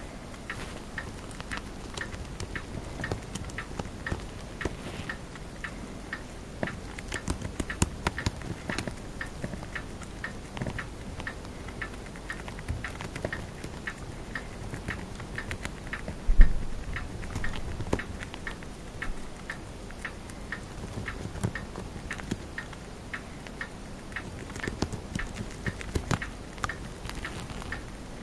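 Chinese dwarf hamster nibbling a green leaf: a steady run of quick, crisp chewing clicks, with one louder dull thump partway through.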